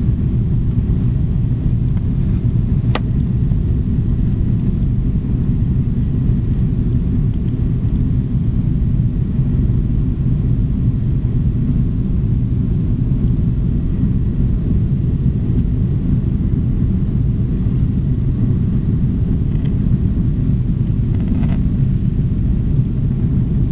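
Steady low rumble of engine and airflow noise inside the cabin of an Airbus A340-600 climbing after takeoff, heard from a window seat over the wing. The airliner has four Rolls-Royce Trent 500 engines. There is a single faint click about three seconds in.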